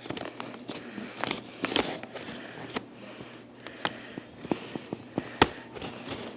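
Plastic retail packaging being handled and its tape seals cut open: irregular sharp clicks, crackles and short scrapes.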